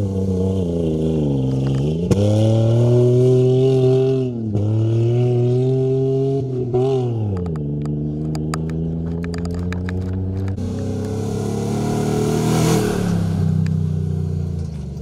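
Off-road rally 4x4's engine revving hard, its pitch climbing and falling back sharply at each of three gear changes in the first half. In the second half it runs on at lower, rougher revs with scattered clicks of flung stones and a rising rush of tyres spraying sand and gravel, loudest a couple of seconds before the end.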